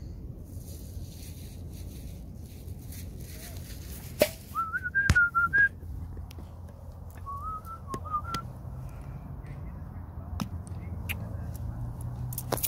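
A person whistling two short phrases of a few wavering notes each, about four and seven seconds in, with a sharp click just before the first phrase and a few more scattered clicks over a steady low rumble.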